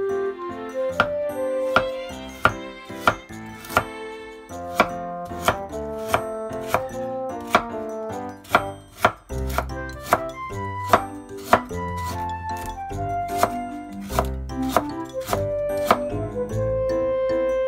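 Chef's knife shaving thin slivers off a burdock root, tapping on a wooden cutting board with a sharp tap about every two-thirds of a second, over background music.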